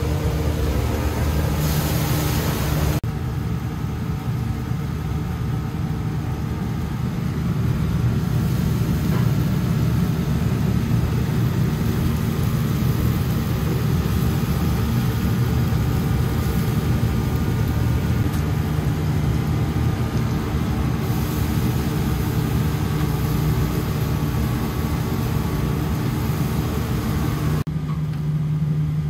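Steady low machine hum with a haze of noise above it; the sound changes abruptly about three seconds in and again near the end.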